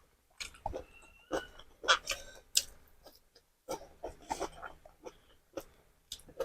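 Close-miked chewing and mouth smacking while eating, a string of short, irregular smacks and clicks.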